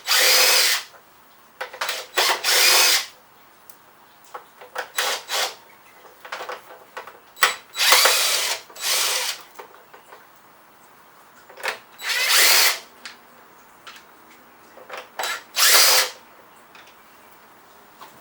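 Cordless battery impact driver backing out the handle screws of a miter saw, in several short bursts a few seconds apart, with small clicks of handling between them.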